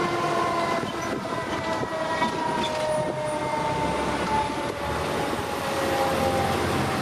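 Fire truck's mechanical Federal Q siren winding down, its wail falling slowly and steadily in pitch, over a low rumble.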